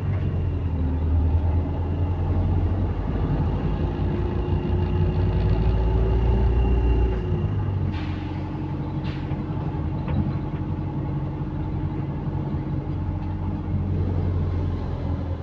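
Diesel bus engine running while the bus is under way, carrying the blowing of an exhaust leak. The engine note climbs slowly for a few seconds and drops away about seven seconds in, followed by two short hisses.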